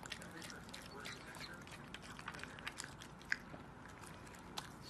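A pug chewing and gnawing on a hand-held chew treat: irregular wet clicks and mouth smacks, with one sharper click a little past the middle.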